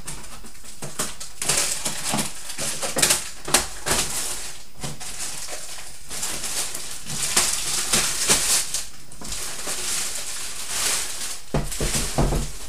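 Clear plastic wrapper being crinkled and pulled off a cardboard box, in repeated crackling, rustling bursts with short pauses between them. A couple of low knocks near the end come as the box is shifted.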